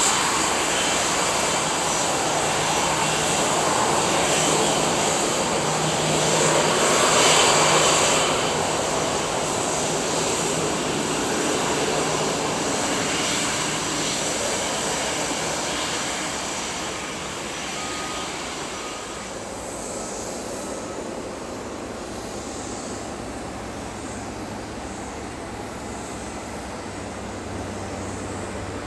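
Airbus A321-200 jet engines at taxi power, a steady whine and hiss that swells as the aircraft passes close about seven seconds in, then eases off. At about nineteen seconds the sound drops to a quieter, lower rumble with a faint hum.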